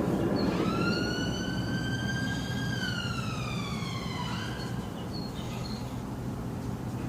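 An emergency vehicle siren gives one wail, rising, holding, then falling away, over a steady low rumble of background noise.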